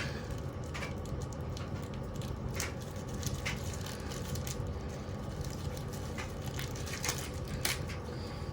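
Washing machine running under a deliberate destruction test, a steady low rumble with scattered sharp knocks and rattles from inside the drum.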